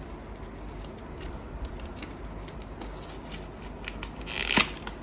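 Hands handling torn product packaging: scattered small clicks and taps, with one short, louder rustle of packaging near the end.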